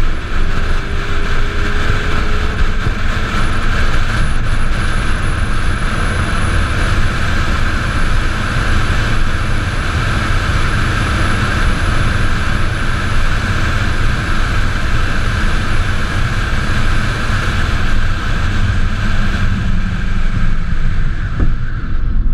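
Onboard sound of a solar race car driving at speed: a steady rush of wind and road noise, with a faint high whine through the middle.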